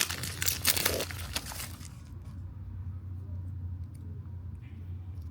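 Trading card booster pack wrapper crinkling as it is handled and opened for about the first two seconds. After that it goes quiet except for a low steady hum.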